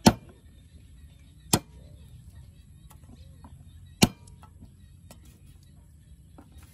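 Cleaver chopping on a wooden stump chopping block: three sharp single chops, the second about a second and a half after the first and the third about two and a half seconds later.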